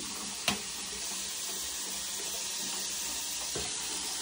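Water running from a bathroom sink tap over hands in a steady hiss, with one brief knock about half a second in.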